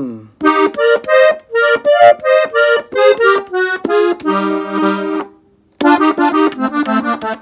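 Gabbanelli button accordion tuned in F playing an ornamental fill in E-flat: a quick run of short treble notes ending on a held chord, then after a brief gap a second phrase that ends on another held chord.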